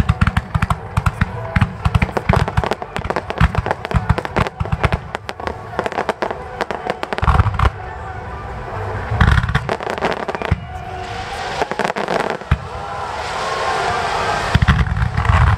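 Aerial fireworks shells bursting: dense, rapid bangs and crackles for the first several seconds, then fewer, heavier booms about halfway through and near the end.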